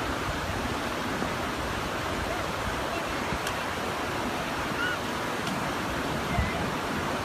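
Floodwater rushing past in a steady, continuous noise of fast-flowing water.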